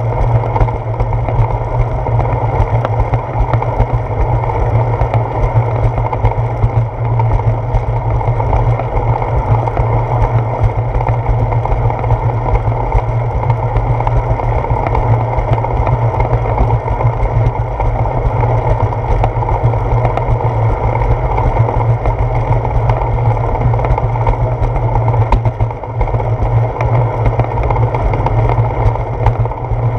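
Steady wind buffeting and road rumble picked up by a handlebar-mounted GoPro Hero 4 on a moving bicycle, a loud, unbroken low rumble.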